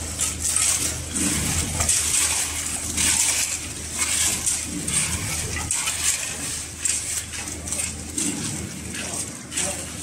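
Hand trowel scraping and tapping through wet concrete laid over a steel rebar mesh, a run of rasping scrapes and small metallic clinks over a steady low hum.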